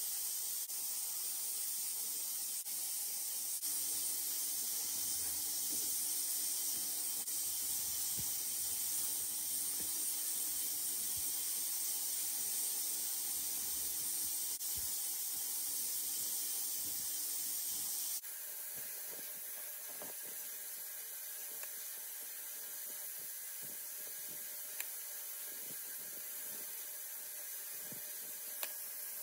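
Steady high hiss of background noise, stepping down a little about eighteen seconds in, with two faint ticks near the end.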